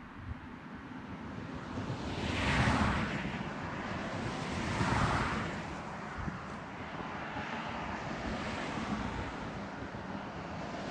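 Wind buffeting the microphone, rising in two gusts about two and a half seconds apart, over a steady outdoor rush.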